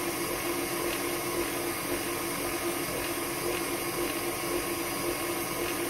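KitchenAid stand mixer running at speed 3 to 4, its motor a steady hum as it drives the food strainer attachment's turning screw, pressing tomatoes through to make juice.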